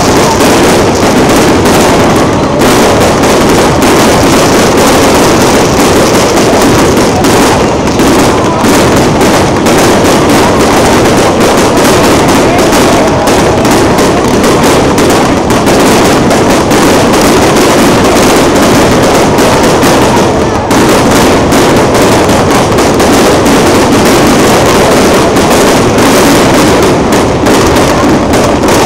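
Fireworks display: a dense, continuous barrage of bangs and crackles with no let-up, very loud throughout.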